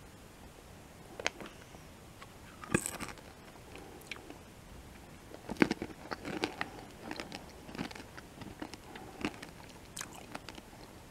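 An M&M being chewed close to the microphone. After about a second, sharp cracks of the candy shell breaking are followed by a run of irregular crunches, with the loudest crack about halfway through.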